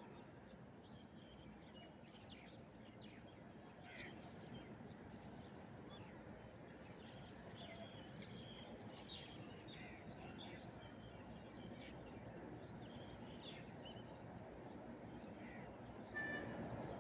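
Many birds giving short chirps and calls over a faint, steady hiss of forest ambience. Near the end a louder run of rapid repeated calls comes in.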